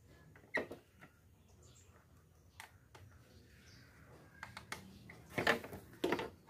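Plastic clicks and knocks from the headlight cover of a Honda Supra X 125 FI being handled and lifted on its mounts: a few scattered single knocks, then a louder cluster of rattling clicks in the last second and a half.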